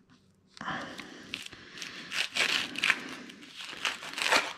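Plastic-wrapped foam packaging crinkling and tearing as it is cut open with a small knife and pulled apart, starting about half a second in, with louder rips about two seconds in and near the end.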